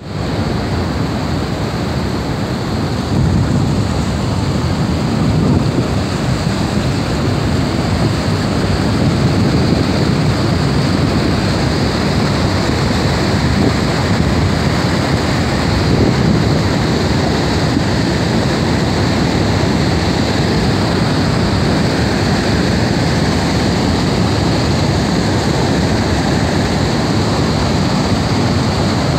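Niagara Falls: the steady rush of its falling water, a loud, even noise heaviest in the low range, getting a little louder about three seconds in.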